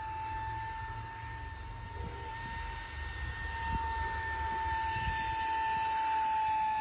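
50 mm electric ducted fan of an RC jet whining at a steady high pitch over a low rumble, growing a little louder in the second half.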